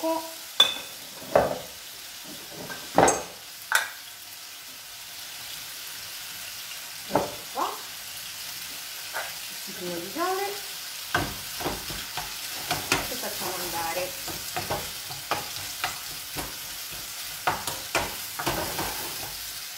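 Chopped cherry tomatoes and diced guanciale sizzling in a frying pan, with a wooden spoon stirring and knocking against the pan in sharp clicks. Several loud knocks come in the first few seconds.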